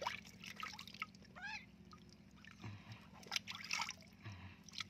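Water splashing and trickling as a wet kitten is held in a tub and rinsed by hand. About a second and a half in, the kitten gives one short mew.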